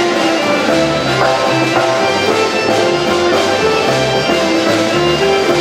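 Live folk ensemble playing a tune together: button accordions, acoustic guitar, saxophone, snare drum, double bass and fiddles, with bass notes changing about twice a second.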